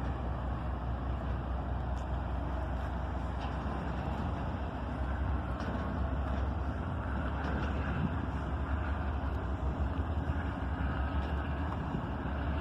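Norfolk Southern diesel freight locomotives running as the train pulls out, a steady low engine rumble that rises slightly about halfway through. Only the two lead units are running; the rear two have been shut down.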